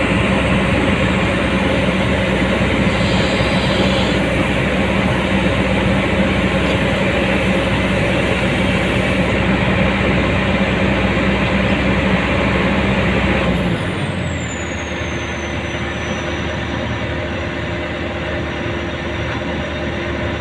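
Komatsu PC200-8 excavator's six-cylinder diesel engine running steadily under load. About two-thirds of the way through, the engine eases off: the sound drops a step quieter and a high whine falls in pitch, then it runs on more quietly.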